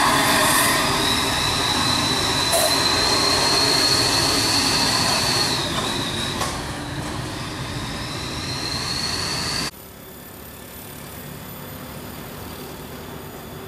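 Heavy truck and car traffic passing close, with a long, high-pitched squeal that wavers, dips and rises again, typical of truck brakes. About ten seconds in the sound cuts off abruptly to a quieter, steady hum of an approaching truck's engine.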